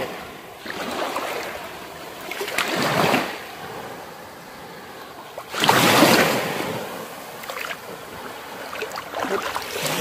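Small waves washing in over the shallows with gentle lapping, swelling twice: a little before three seconds in, and louder about six seconds in.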